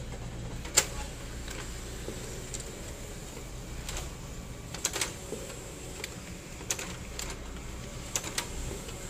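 Fuji Xerox DocuCentre S2110 photocopier running a copy job as its automatic document feeder draws the originals through: a steady low motor hum with several sharp clicks at irregular intervals, the loudest about a second in.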